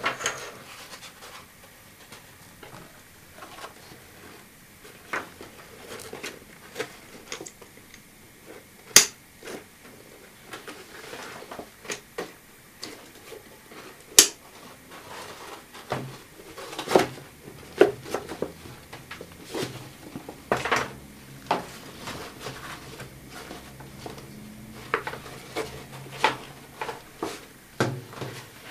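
Flecktarn fabric bag handled on a wooden table: the cloth rustles and scrapes, with scattered sharp clicks and knocks from its strap buckles and flap. Two clicks stand out, about 9 and 14 seconds in.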